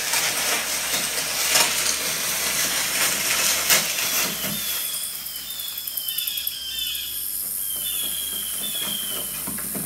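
Film soundtrack played through Klipsch home theater speakers: dense rustling of corn stalks as someone pushes through them, giving way about halfway through to a string of short, high, falling chirps over a soft hiss.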